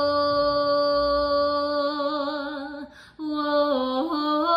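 A woman singing a long, steady "whoa" note in a gospel worship song. She breaks for a breath about three seconds in, then carries on with shorter notes that waver and step in pitch.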